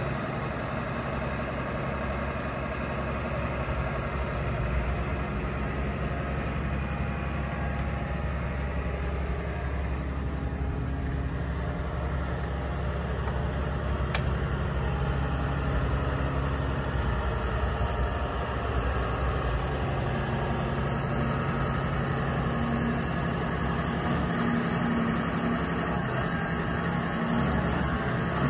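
Cat 320E L crawler excavator's diesel engine running steadily with an even, low engine note.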